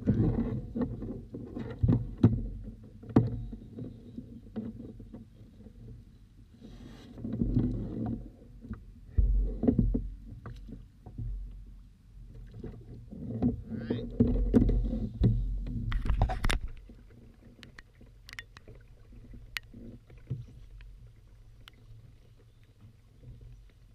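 Handling noise on a plastic fishing kayak: irregular bumps, knocks and rumbling against the hull in bursts, followed by a quieter stretch of scattered sharp ticks.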